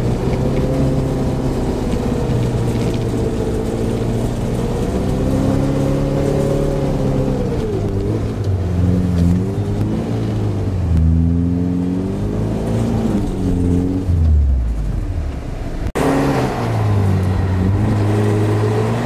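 A Suzuki off-road 4x4's engine running and revving up and down while the vehicle is winched up a steep climb on its front winch. Its pitch rises and falls unevenly, dipping lowest around the middle, and the sound changes abruptly about 16 seconds in.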